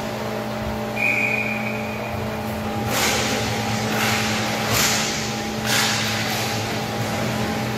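Play sounds of an inline roller hockey game heard from behind the boards. There are several brief scraping hisses from skates and sticks on the rink floor and a short high squeal about a second in, over a steady background hum.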